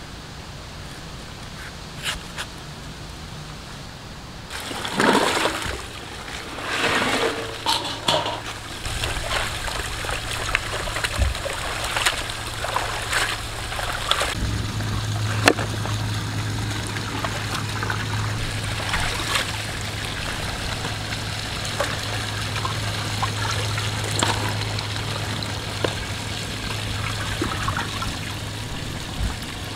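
Water splashing and sloshing in a large metal cooking pot as sliced palmyra fruit pieces are pressed into it by hand, loudest in a few splashes early on. A steady low hum sets in about halfway through.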